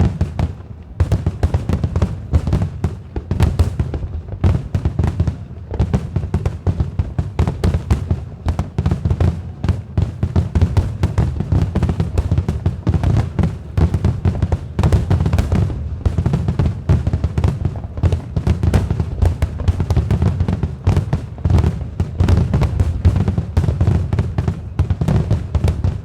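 Fireworks display going off in a dense, rapid barrage of bangs with no pause, over music playing along.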